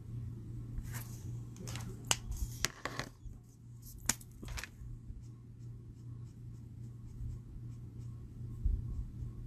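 Felt nib of a Spectrum Noir Illustrator alcohol marker scratching across cardstock in short colouring strokes. Around four seconds in there are a couple of sharp clicks as markers are swapped, then only faint light ticks. A steady low hum runs underneath.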